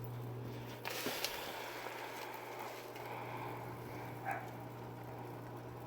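Steady low hum with a light background hiss, and a few faint clicks.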